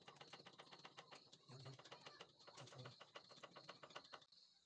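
Near silence with faint, irregular clicks and ticks.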